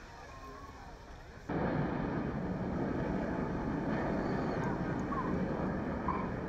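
Faint beach ambience with distant voices, then, about a second and a half in, a sudden change to the loud, steady engine noise of the Red Arrows' BAE Hawk jets flying a formation display overhead.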